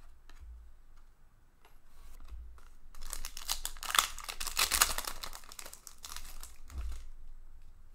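Foil wrapper of a hockey trading-card pack being torn open and crinkled, loudest from about three seconds in for a couple of seconds, then quieter rustling as the cards are slid out.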